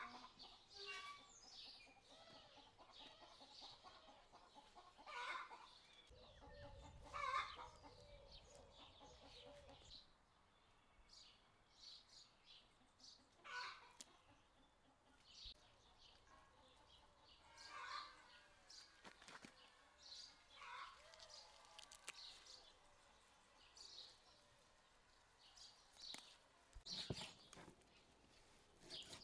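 Domestic chickens clucking off and on, faint and scattered, with a few short calls from other birds among them.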